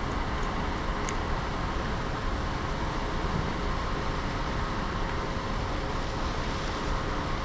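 Steady noise of a ferry under way, heard from the open deck: a low engine hum under rushing wind and water from the wake.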